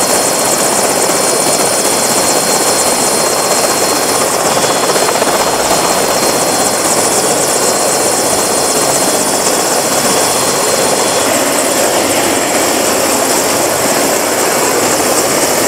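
Turbine helicopter running on the ground with its rotor turning: a steady loud mix of rotor and engine noise with a thin high-pitched turbine whine over it, the hiss above the whine easing a little near the end.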